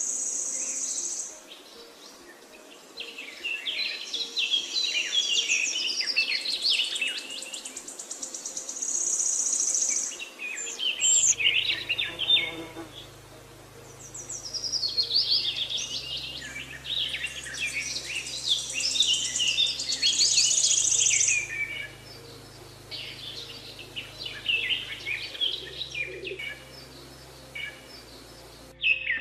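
Several songbirds singing and chirping in overlapping bursts a few seconds long, with high buzzing trills among them. From about eleven seconds in, a low, sustained drone runs underneath and shifts pitch in steps.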